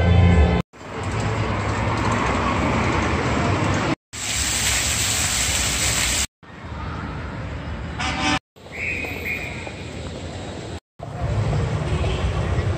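Outdoor city-street sound in several short clips that cut off abruptly one after another: traffic noise, a stretch of water splashing from a fountain's jets, and a vehicle horn giving two short toots a little past the middle.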